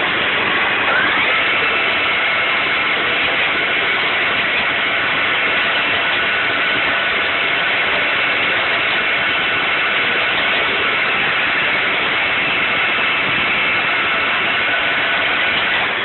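Traub TD 26 automatic lathe with star turret running under power, a steady mechanical drone with faint high whining tones that shift now and then, and a short rising whine about a second in.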